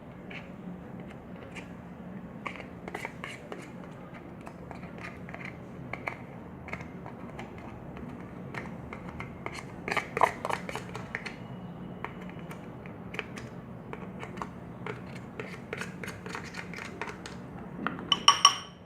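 Scattered small clicks and taps of a plastic shampoo bottle and utensils being handled as shampoo is squeezed into the slime mix, over a low steady hum. The clicks come more thickly about ten seconds in.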